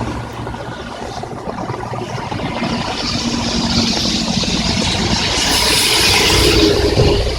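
Heavy rain with traffic on a wet highway: a vehicle's engine rumble and tyre spray swell gradually to a peak about six seconds in, then ease off.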